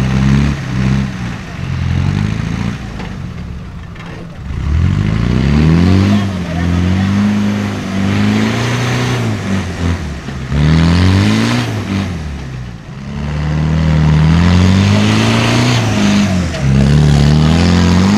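Land Rover Discovery's engine revving hard in repeated bursts as it claws up out of a deep rut, its pitch rising and falling with each stab of throttle.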